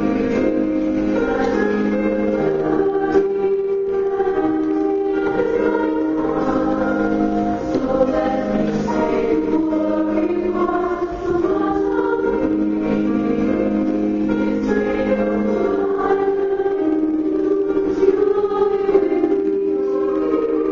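Sacred song with choir-like singing voices over instrumental accompaniment, held notes at a steady level.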